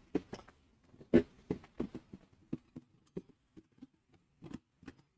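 Light, irregular clicks and knocks of hard plastic parts being handled as a filament spool is set into a plastic storage box. The sharpest knock comes about a second in.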